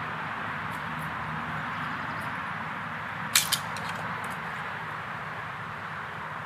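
Steady hiss of outdoor background noise, with two sharp clicks about three and a half seconds in.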